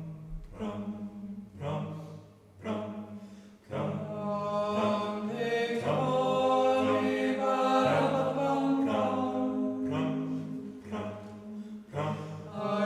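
Background music of unaccompanied voices singing a slow chant, held notes changing every second or so, fullest about four to ten seconds in.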